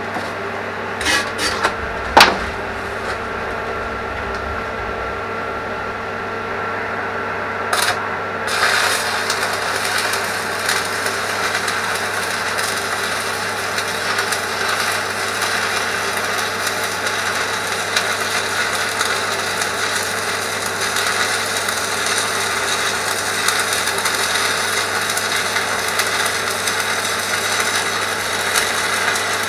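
An angle grinder cleaning up the steel of a digger bucket. There is a hum and a few sharp knocks at first. About eight seconds in, a steady grinding noise starts as the tool works the metal and goes on without a break.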